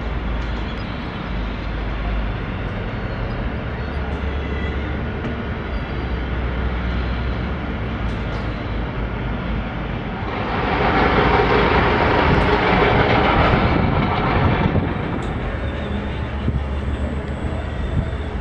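Steady outdoor city background with a low rumble. A louder, even rushing noise swells in about halfway through and dies away about four seconds later.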